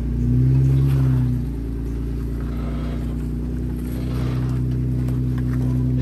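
Jeep Wrangler engine working the four-door Jeep up a rock ledge. The engine rises and falls in the first second and a half, settles to a steady pull, then pulls harder again from about four seconds in.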